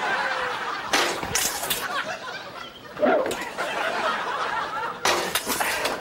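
Sledgehammer striking the metal spreader bar of an aluminium stepladder to break it off: two sharp metallic hits, about a second in and near the end. Audience laughter in between.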